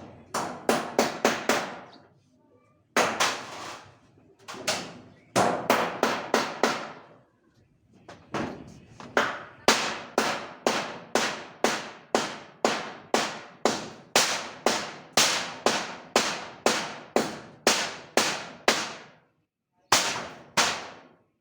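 Repeated hammer blows in runs of quick, evenly spaced strikes, each with a short ringing clang; the longest run goes on for about ten seconds at two to three blows a second.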